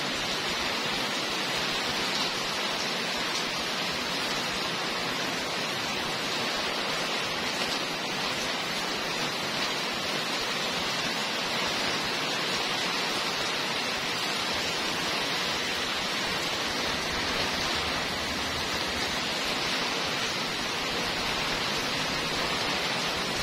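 Heavy rain pouring steadily onto wet brick paving, a dense, even hiss.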